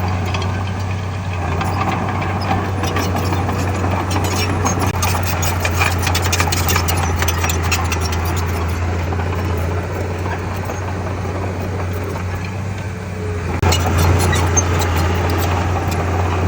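Heavy diesel engine of earthmoving machinery running steadily, with spells of rapid clicking and rattling about four seconds in and again near the end.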